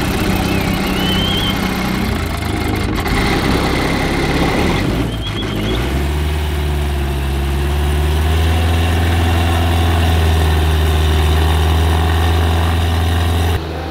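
Rotax engine and propeller of a newly built Sling High Wing light aircraft running on its first-ever start. The note is uneven for the first few seconds, then settles into a steadier, stronger hum from about six seconds in.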